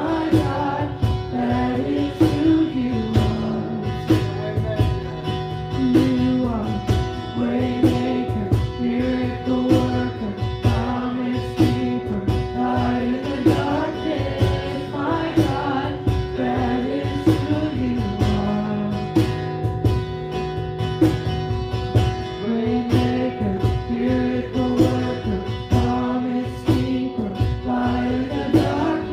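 Live worship song: a woman sings the melody over a strummed acoustic guitar and a steady cajón beat.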